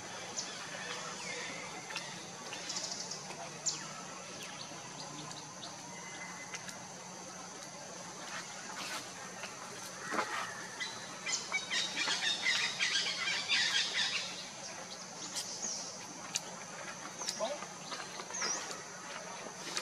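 Outdoor woodland ambience: birds give short high chirps here and there, with a busier burst of twittering about halfway through, over a steady high insect drone.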